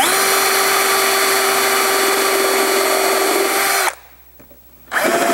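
DeWalt cordless drill with a countersink bit boring a pilot hole into a plywood roof panel, running at a steady speed for about four seconds, then stopping. It starts again briefly near the end.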